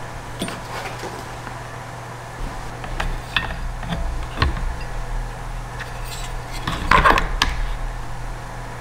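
Handling noise as a solid state relay on a finned heat sink is pressed into the plastic base of a food dehydrator: scattered clicks, light knocks and rubbing of metal against plastic, the loudest cluster about seven seconds in.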